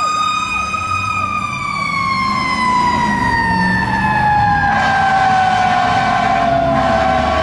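Fire truck siren on an aerial ladder truck, one steady wail that starts sliding slowly and evenly down in pitch about a second in as it winds down, over the low rumble of the truck's engine.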